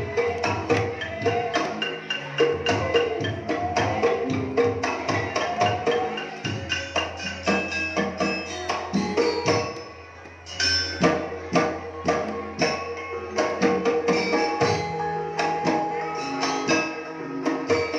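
Dance music with quick, busy percussion strikes under pitched melodic notes. It thins out briefly about ten seconds in, then picks up again.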